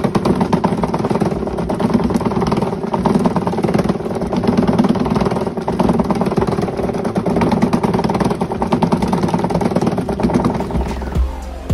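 Electric foot spa's vibration motor buzzing steadily, with a rapid clatter, shaking the water in its tub around a Trojan golf cart battery being flushed with baking soda solution. It dies away near the end.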